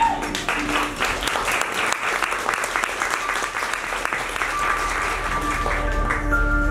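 Audience clapping over the performance music. The clapping thins out about five seconds in, and the music's held tones come forward.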